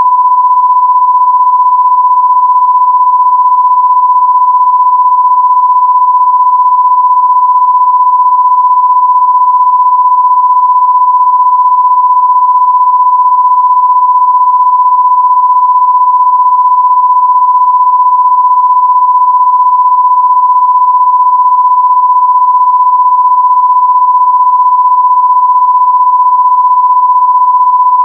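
A loud, steady pure test tone at about 1 kHz, held unbroken without any change in pitch or level.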